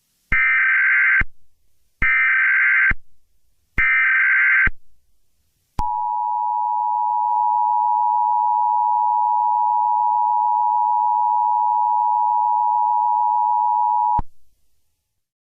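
Emergency Alert System header: three short bursts of SAME data tones, each about a second long, followed by the EAS two-tone attention signal sounding steadily for about eight seconds before cutting off abruptly.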